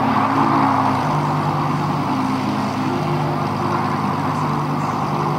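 Lamborghini engine running steadily at low revs, its note stepping slightly up and down, over steady background noise.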